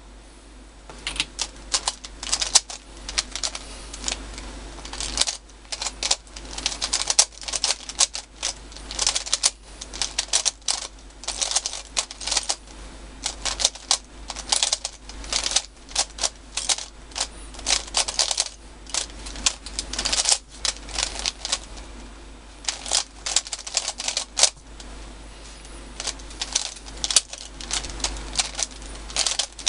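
MoYu Weilong 3x3 speed cube being turned fast in a timed solve: rapid clicking and clacking of its plastic layers, in quick bursts with brief pauses, starting about a second in.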